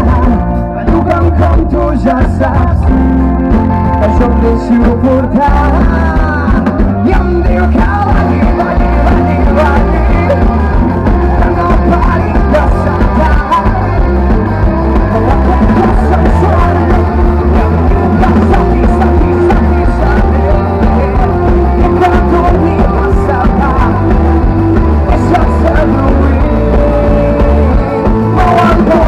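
Live rock band playing: electric guitars, bass and drum kit, with singing at times. The sound is loud and steady, with a heavy bass.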